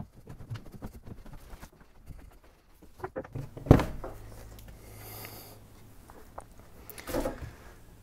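Footsteps going down a staircase with camera handling noise and light knocks, then one sharp loud thump about four seconds in. A low steady hum starts just after the thump, and there is a short breath near the end.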